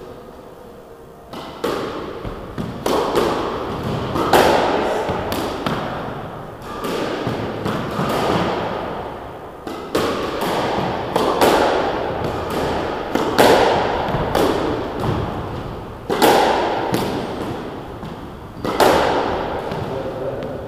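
Squash ball struck by rackets and smacking off the court walls in a fast rally drill, a hit roughly every half second to second, each ringing on in the enclosed court. The hits start about a second and a half in.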